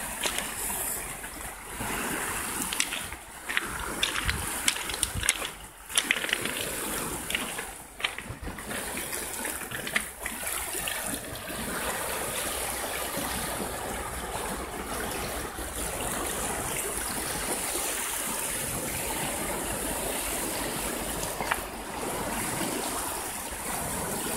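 Small sea waves washing and splashing over a pebble shore among rocks, a steady rush of water. Scattered sharp clicks and knocks come in the first half.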